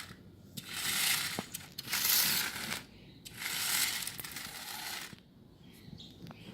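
Small building parts rustling and clattering as they are handled and put into the car's compartment, in three bursts of about a second each with a few sharp clicks.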